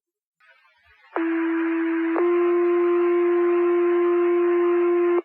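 Fire dispatch two-tone radio page over radio hiss: a low steady tone about a second long, then a slightly higher tone held about three seconds that cuts off sharply. The tones set off the volunteer firefighters' pagers.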